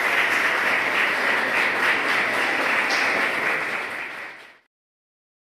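Audience applauding, a dense crowd clapping that fades and then cuts off abruptly a little over four seconds in.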